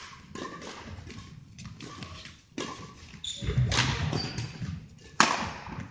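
Badminton doubles rally: rackets striking the shuttlecock and players' footsteps on the court, with a series of sharp hits and one loud, sharp racket hit about five seconds in.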